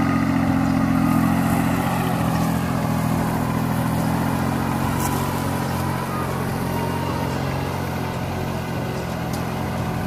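Mini tractor's diesel engine running steadily while driving a boom sprayer's pump, slowly getting fainter as the tractor moves away.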